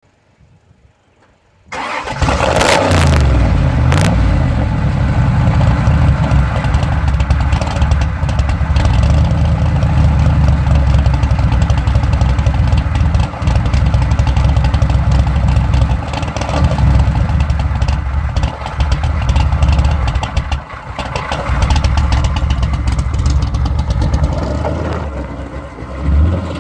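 Car engine starting with a sharp burst about two seconds in, then running loudly with its pitch rising and falling through repeated revs, and cutting off abruptly at the end.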